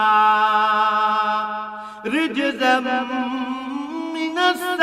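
Man reciting the Quran in Arabic in melodic tajweed style: a long held note for about two seconds, then a new phrase of the verse with gliding, ornamented pitch.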